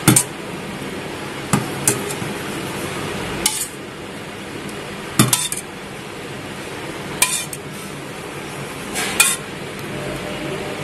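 A spoon clinking and scraping against steel bowls as thick curd chutney is spooned into a small steel serving bowl: sharp clinks every second or two, some in quick pairs.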